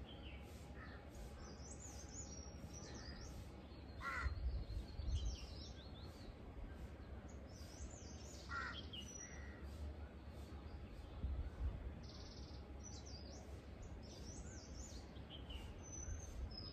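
Outdoor birdsong: small birds chirping and trilling high up throughout, with a crow cawing about four seconds in and again near nine seconds, over a low rumble.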